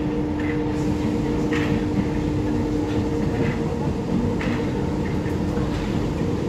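Paris Métro MF 77 train running through a tunnel, heard from inside the car: a steady rumble of the wheels on the track with a constant hum. Brief higher clicks come every second or so.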